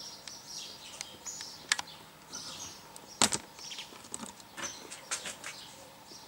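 Small birds chirping in the background, with scattered light clicks and one sharp knock about three seconds in.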